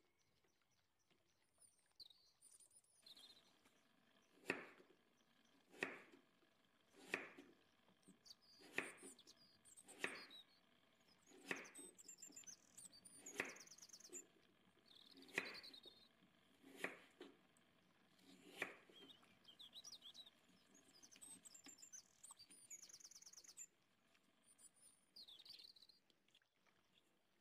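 Knife chopping on a cutting board: about ten slow, even strokes, roughly one every second and a half. Birds chirp faintly in the background.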